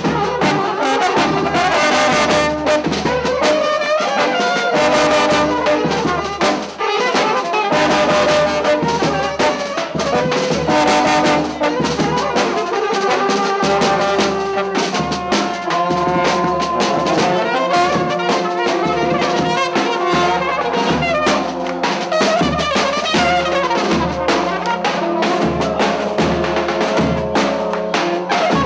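A live brass band of trumpets and horns playing up close, loud and continuous, with a regular beat underneath.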